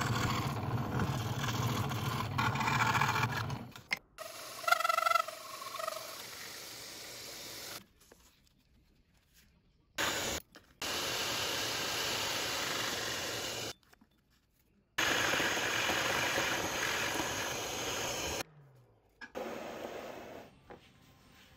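Woodworking power tools in short clips cut one after another. First a scroll saw blade cuts through a wood blank, then a hole saw in a drill press bores into a board. The steady cutting noise stops abruptly between clips, and a falling hum comes near the end.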